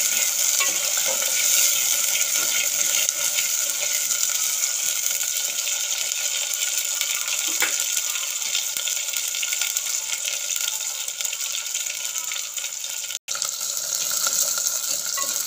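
Whole shallots and garlic cloves sizzling in hot sesame oil in a clay pot: a steady frying hiss, with a metal ladle stirring them at times. The sound cuts out for a split second near the end.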